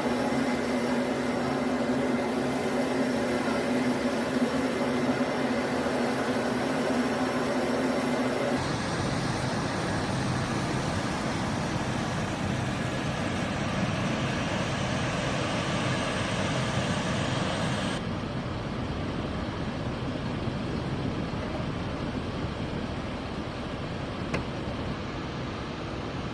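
Jet engines of a C-17 Globemaster transport running loud and steady, first with a steady hum under the noise. The sound changes abruptly twice, about eight and a half and eighteen seconds in, to a rougher rushing noise and then a slightly quieter one.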